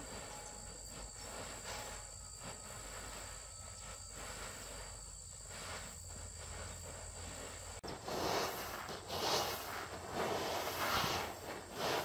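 Steady high-pitched insect chirring, cricket-like, with a faint low hum. About eight seconds in it cuts off abruptly and gives way to a louder, uneven noise that swells and fades irregularly.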